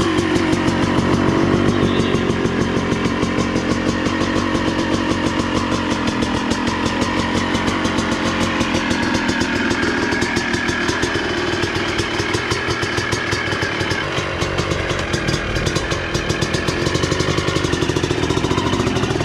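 Honda CR250R's freshly rebuilt 250 cc two-stroke single-cylinder engine running, with a rapid popping exhaust beat.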